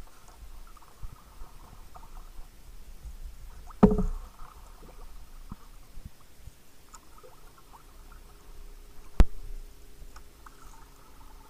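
A sea kayak on the water: paddle splashes and trickling water over a low rumble. There are two sharp knocks, one about four seconds in with a short hollow ring and a second one near the end.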